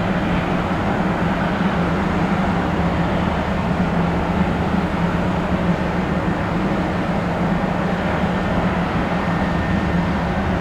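Jet airliner engines running, a steady, even noise with a constant low hum that does not rise or fall.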